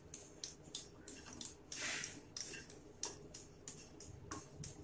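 Wooden spatula stirring dry rolled oats around a nonstick kadai: a faint run of short, irregular scrapes and taps against the pan, with one longer scrape about two seconds in. The oats are dry-toasting in the pan's leftover heat, so there is no sizzle.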